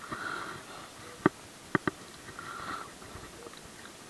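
Hands unhooking a small largemouth bass: soft wet handling noises with a few sharp clicks, one a little over a second in and two close together near the middle.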